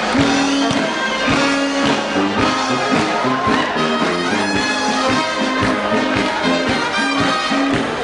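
Upbeat music with a brass section of trumpets and trombones over a steady beat.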